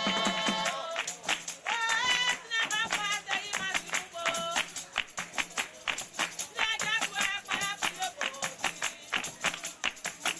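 Music: a singing voice in short phrases over fast, dense percussion.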